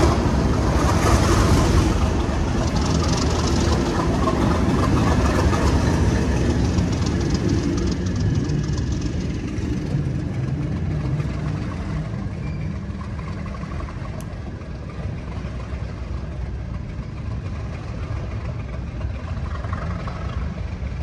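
Class 37 diesel locomotive 37425's English Electric engine running under load as the train passes and draws away, the sound slowly fading.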